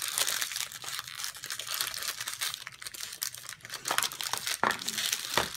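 Foil blind-bag toy packets being crumpled and torn open by hand: irregular crinkling and ripping.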